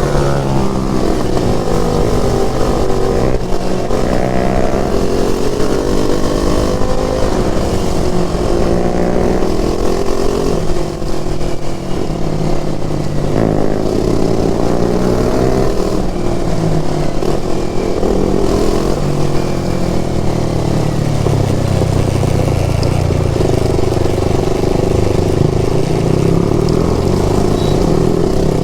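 KTM RC 390 motorcycle engine under way, pulling up through the gears: the pitch climbs and drops back at each shift several times, then runs steadier at lower revs near the end.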